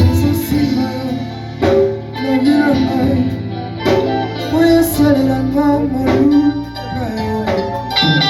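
Music: singing over guitar and held keyboard notes, with a few sharp strokes about every two seconds.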